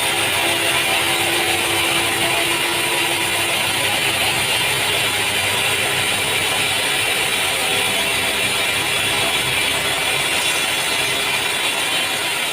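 Steady mechanical noise of sawmill machinery running, with a dense high hiss and a faint hum in the first few seconds.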